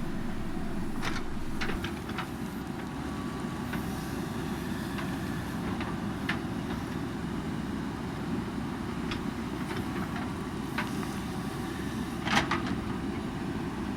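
JCB backhoe loader's diesel engine running steadily, with a few sharp knocks over it, the loudest about twelve seconds in.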